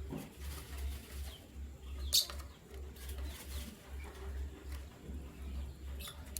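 Canaries giving a few short, sharp chirps, the loudest about two seconds in, over a steady, pulsing low hum.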